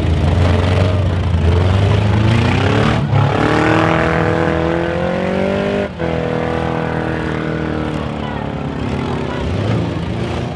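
Several demolition derby cars' engines running together under load, one of them revving and rising in pitch between about two and six seconds in, breaking off briefly, then holding a slowly falling pitch.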